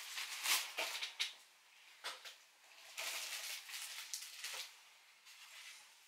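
Plastic packaging bag crinkling and rustling as a T-shirt is taken out of it, in two spells with a short lull between them.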